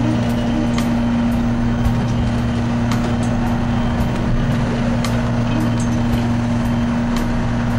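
Fishing boat's engine running steadily under way, heard from inside the wheelhouse as a loud, even drone with a strong low hum, with scattered sharp ticks over it.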